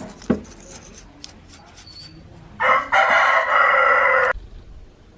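Mechanical alarm clock's bell ringing loudly for under two seconds, then cut off suddenly. A few light clicks come before it.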